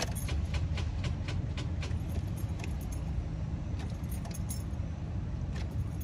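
Light clicks inside a car, about five a second for the first two or three seconds and sparser after, over a steady low rumble.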